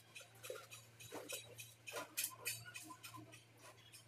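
Faint scattered clicks and scrapes of a small metal bowl scooping cement slurry from a plastic bucket and scraping it onto a concrete floor, over a low steady hum.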